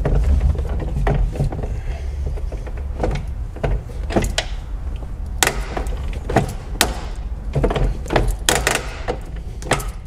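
Breaker bar and Torx bit straining on a very tight, threadlocked seat-belt anchor bolt: irregular sharp clicks and knocks of the tool as the bolt is slowly worked loose. A steady low hum runs underneath.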